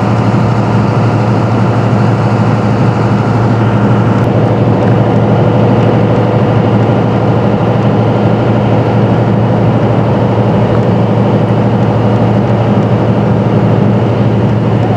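A steady low engine drone that holds the same pitch and level throughout.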